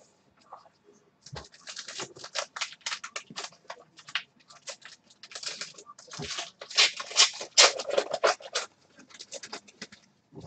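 Foil trading-card pack wrappers crinkling and tearing as a pack is opened, with the cards rubbing and sliding against each other: a dense run of short, sharp crackles and rustles with brief pauses.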